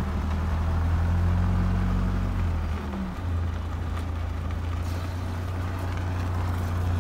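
Wind buffeting the microphone: a steady low rumble with a hiss over it, and a low hum that fades out about three seconds in.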